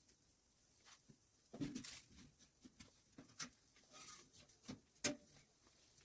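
Faint, irregular small clicks, taps and rustles, with a louder rustle about one and a half seconds in and a sharp click about five seconds in.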